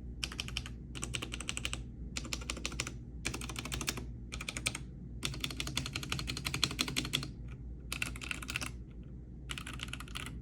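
Typing test on a Guffercty Kred 65% hot-swappable mechanical keyboard: quick runs of key clacks with short pauses between them, recorded through an iPhone microphone, over a faint low hum.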